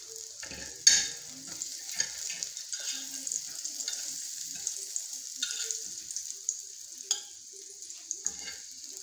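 Hot oil sizzling steadily in a frying pan, with a few sharp utensil clicks and scrapes as the fried omelette is lifted onto a plate; the loudest knock comes about a second in.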